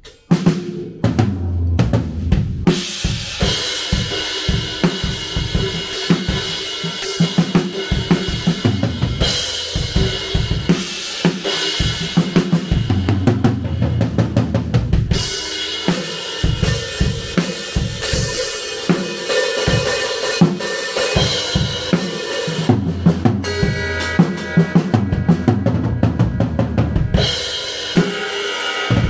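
Acoustic drum kit played in a steady groove with fills: bass drum, snare and cymbals struck at close range. Picked up by a DJI Pocket 2's built-in microphone, the sound is slightly overdriven and clipped.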